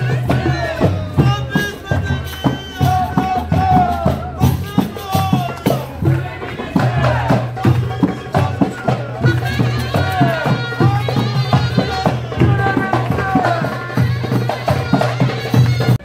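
Live street musicians playing a dance tune: a wavering melody with sliding notes over quick, steady percussion. The music stops abruptly at the very end.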